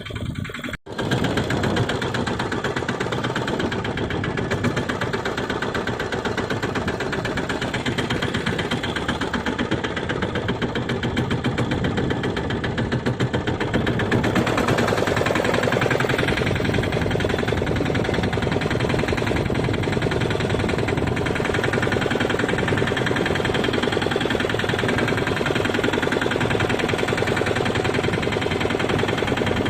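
Fishing boat's engine running steadily, with a brief break about a second in and a little louder from about halfway.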